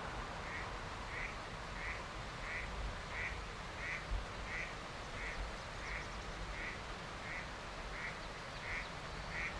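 An animal call, a short note repeated at a very even pace of about three every two seconds, over a steady hiss.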